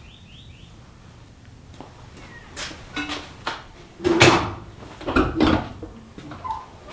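Outdoor wood boiler's steel door and latch being worked open: a series of metal knocks and clanks, the loudest about four seconds in and a pair more about a second later.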